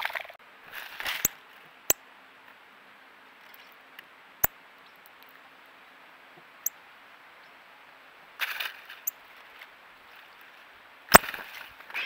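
Songbirds feeding at a wooden tray feeder of mixed seed: scattered sharp clicks and taps with a few short rustling flurries of wingbeats, the loudest flurry about a second before the end.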